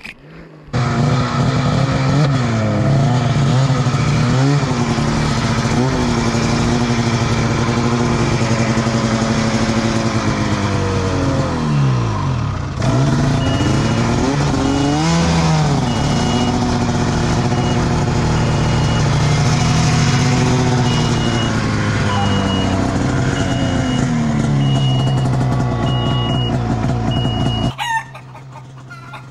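2013 Arctic Cat M800's two-stroke twin engine starts up about a second in and runs with the throttle blipped up and down, dipping low twice midway. A repeating high beep sounds from about halfway. The engine stops abruptly near the end as the sled tips over in deep snow.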